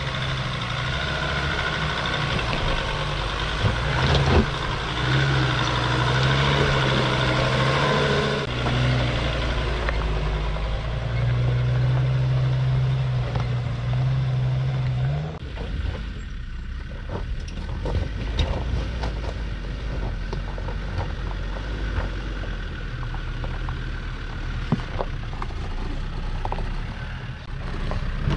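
Jeep Grand Cherokee WJ's 2.7 CRD five-cylinder diesel engine running at low revs as it crawls up a rocky dirt track. About halfway through, the engine tone suddenly drops away, leaving tyres crunching and knocking over loose stones, with wind noise.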